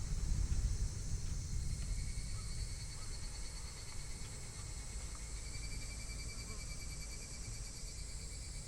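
Insects, crickets, chirring steadily in a high, even trill over a continuous low rumble.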